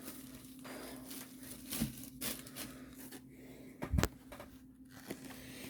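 Quiet handling noises as a diamond painting kit and its packaging are moved about: soft rustles and a few small clicks, the sharpest about four seconds in, over a faint steady hum.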